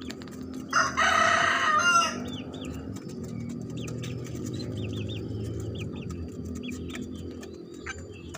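A rooster crows once, loud and a little over a second long, about a second in. Short high chirps from lovebirds repeat throughout over a steady low hum.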